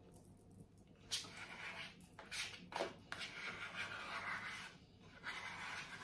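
A spoon scraping thick cream cheese out of a plastic tub, a run of scrapes with a few light knocks, starting about a second in.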